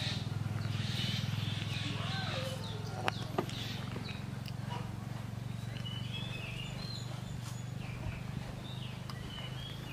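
A steady low hum, with faint high chirps over it and two sharp clicks about three seconds in.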